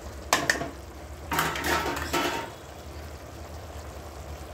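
Kitchen utensils clattering as spices are added to an aluminium pressure cooker: one sharp knock, then about a second of clinking and rattling.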